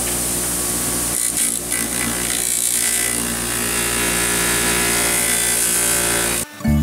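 Fiber deburring wheel spinning on its motor while steel pliers are pressed against it, a steady hum under a hissing rub of metal on the abrasive wheel. The sound cuts off abruptly near the end.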